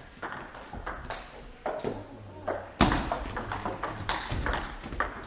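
Table tennis ball clicking off bats and the table in a rally, a sharp hit every half second or so, with one harder hit a little past the middle standing out as the loudest.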